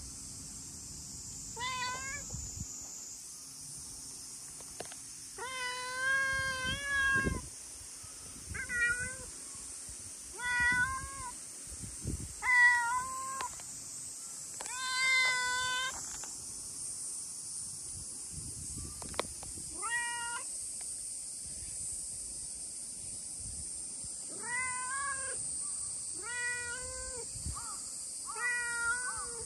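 A chatty stray cat meowing again and again: about ten short meows with gaps between them, two of them longer and drawn out, about six and fifteen seconds in.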